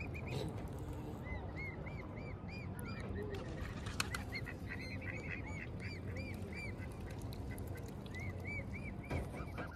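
Young waterfowl (cygnets or goslings) peeping: runs of high, arched peeps, about three a second, in three bursts, over a steady low background noise. A single sharp click about four seconds in.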